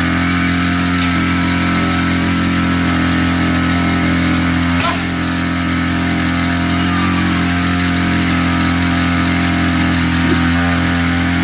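Small engine running steadily at an even speed, with one sharp knock about five seconds in.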